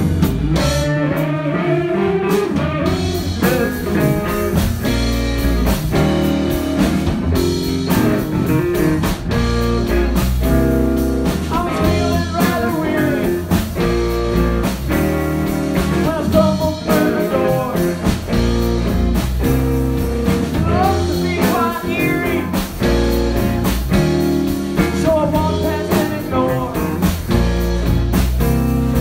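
Blues-rock music with electric guitar, bass and drums and a singing voice, playing steadily at full level.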